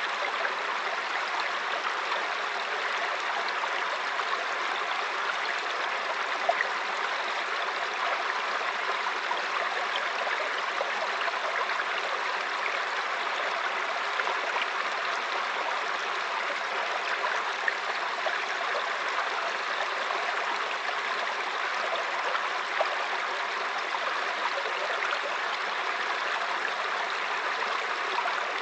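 Mountain brook flowing steadily over rocks, an even rushing babble with small splashes here and there.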